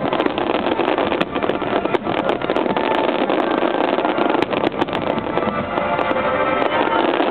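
A dense barrage of aerial fireworks: many shells bursting at once, giving a continuous rushing din dotted with sharp cracks and pops throughout.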